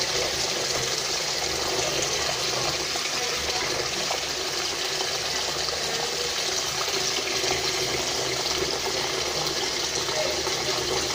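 Water running steadily from a tap, rinsing soap suds off a plastic car tail-light lens.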